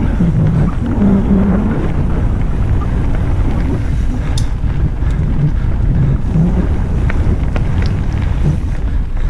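Wind buffeting the microphone and mountain bike tyres rumbling over a loose gravel forest trail on a fast descent, with a few sharp clicks and rattles from the bike over rough ground.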